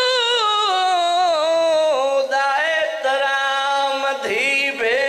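A man's solo voice chanting verses in a melodic, sung style into a microphone at a majlis. He holds long notes that waver and glide between pitches, and breaks off briefly about four seconds in.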